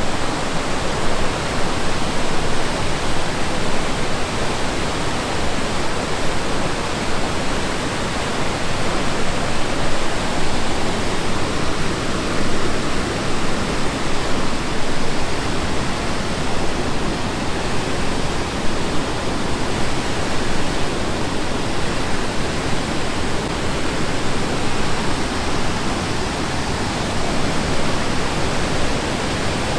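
Loud, steady rush of water falling through the Tallulah River gorge.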